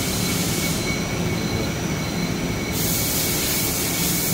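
1995 Dainichi F50 CNC lathe running with its spindle turning a large disc-shaped workpiece: a steady machine noise with a thin whine. A high hiss cuts out about a second in and comes back about two seconds later.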